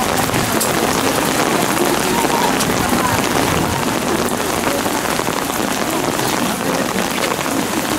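Steady rain falling on umbrellas and wet pavement, a constant hiss dotted with small drop ticks.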